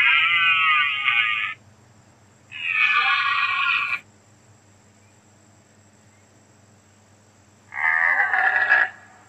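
Deer calling: three long, high calls, each a second or a second and a half long, with quiet gaps between them.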